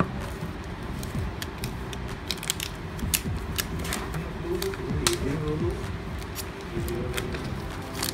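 Clear plastic shrink wrap on a phone's retail box crinkling and crackling as it is torn and peeled off by hand, in many short irregular crackles over a steady low background hum.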